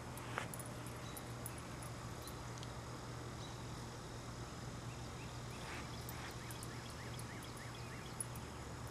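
Outdoor evening ambience under a steady low hum, with faint high insect chirping. About six seconds in, an animal call: a run of about eight quick chirps, each gliding downward. No thunder is heard.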